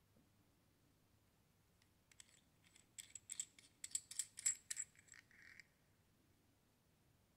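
Small stainless steel parts of a Perlick beer faucet clinking together as it is taken apart: a quick run of light metallic clicks with a faint ringing, ending in a short soft scrape.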